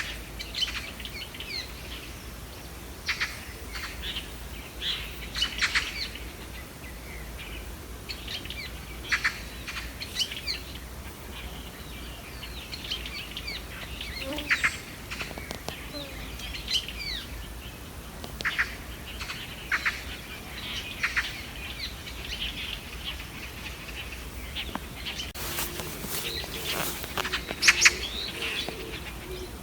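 Wild songbirds chirping and calling in short, scattered bursts over a steady outdoor background. Near the end comes a brief burst of noisy sound with a couple of sharp clicks, the loudest moment.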